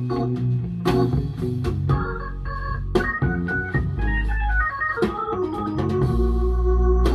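Organ-led music with a deep bass line and sharp percussive hits, played back through Lii Headwrecker folded-horn speakers with Lii Song PT-10 full-range drivers.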